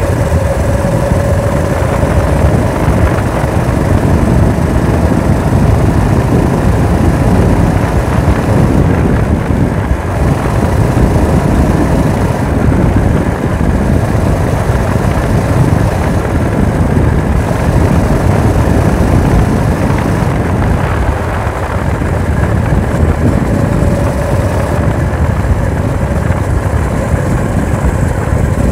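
Four-stroke engine of a home-built motorized bicycle chopper running steadily under way through its fibreglass-packed muffler, mixed with wind rushing over the handlebar camera.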